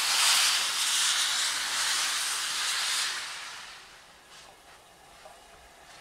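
Steam hissing from the cylinder drain cocks of LMS Black Five 4-6-0 steam locomotive 5025. The hiss is steady for about three seconds, then dies away.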